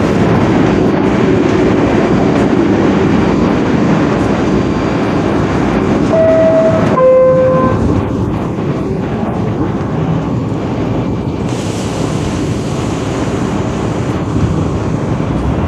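Interior noise of an R62A New York City subway car, a steady rumble, with the car's two-note falling door chime sounding about six seconds in.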